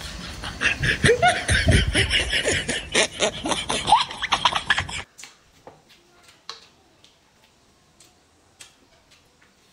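Snickering laughter sound effect with squeaky rising pitches, cutting off suddenly about five seconds in. After it, a few light clicks of chopsticks against a bowl.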